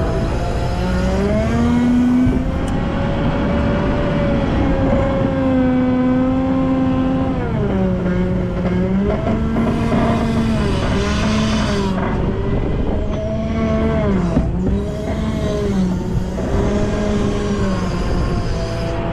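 Volvo L90F wheel loader's diesel engine working, its speed rising and falling over and over as the loader pushes and shuttles snow, with longer held high-revs early on and quicker ups and downs in the second half.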